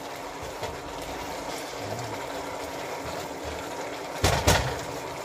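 Sweet and sour sauce bubbling and sizzling in a frying pan around a whole fried pompano, a steady hiss. About four seconds in, a few sharp knocks of a spatula against the pan.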